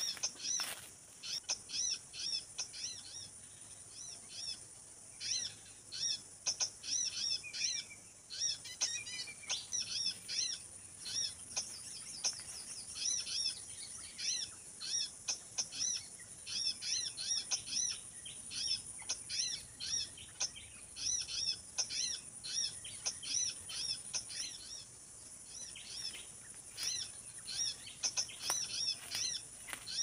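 Small songbirds chirping: short, high, sharp calls in quick runs of several a second, with brief lulls, over a steady high-pitched hiss.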